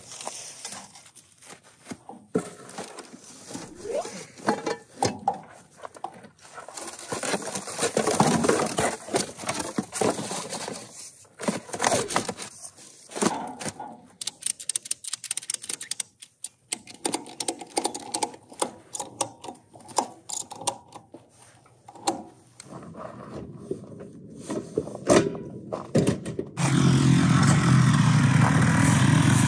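Old foam padding and trash being handled and packed into a hitch-mounted cargo carrier: rustling, scrapes and short thunks. Near the end an engine starts suddenly and runs steadily.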